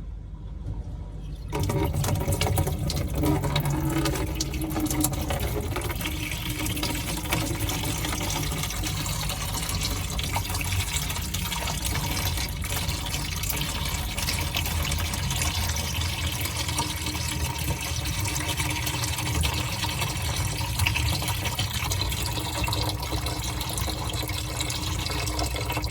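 Water pumped out of a dishwasher's disconnected discharge hose, starting suddenly about a second and a half in and then pouring out steadily. This is the drain pump pushing the water out through the freshly cleared hose.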